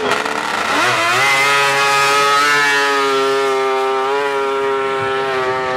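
Racing snowmobile engine at full throttle on a straight-line speed run: the revs climb quickly in the first second or so, then hold high and nearly steady as the sled runs flat out.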